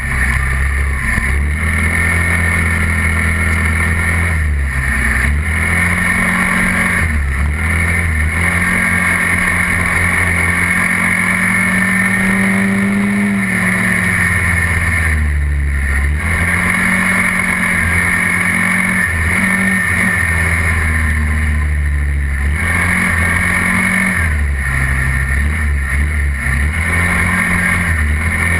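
SYM Quadlander 300 ATV's single-cylinder engine running under way, heard from on board over steady wind and road noise. The engine note shifts with the throttle, rising about halfway through and then dropping back.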